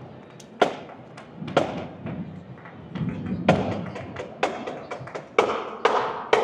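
Parade marching band drums beating a steady marching cadence, one strong strike about every second with lighter strikes in between.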